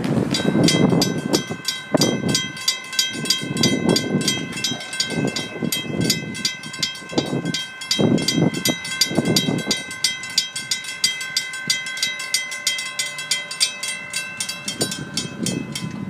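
Railroad grade-crossing bell ringing rapidly and evenly, about three strikes a second, starting just after the beginning and stopping near the end, over gusts of low rumble.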